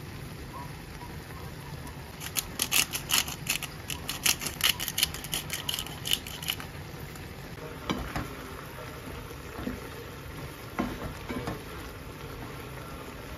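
Creamy chicken and mushroom sauce simmering and bubbling in a frying pan. About two seconds in, a rapid run of sharp crackling clicks lasts roughly four seconds. Later a few soft knocks follow as a wooden spatula stirs the pan.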